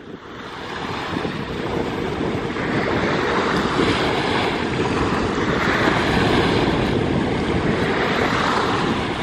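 Small waves breaking and washing up a sandy shore, with wind on the microphone. The noise builds over the first couple of seconds and then holds steady.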